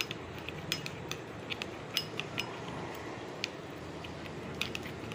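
Steel spoon stirring a thick paste of ketchup and spice powders in a small glass bowl, clinking and scraping against the glass at irregular intervals, some clinks briefly ringing.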